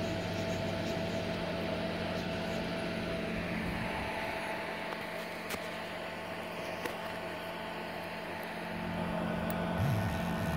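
Steady electrical hum with a few held tones from an energized stepper motor and its microstepping driver. Near the end a low tone wavers up and down as the stepper turns in response to the hand pulse generator.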